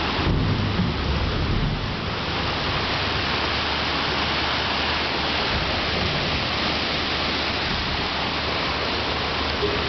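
Steady rushing noise of a ship's churning stern wake and propeller wash, an even hiss with a heavier low rumble in the first two seconds.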